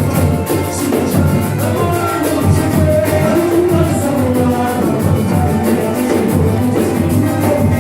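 A batuque-style percussion group playing music: a quick, even drum beat with a melody over it.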